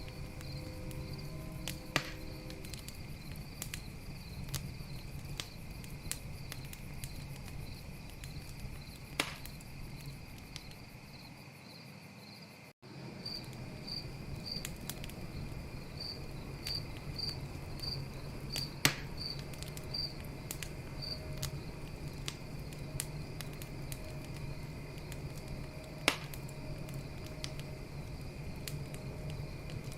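Campfire crackling with a few loud, sharp pops, over a steady chorus of crickets chirping. The sound dips and briefly cuts out a little before halfway through.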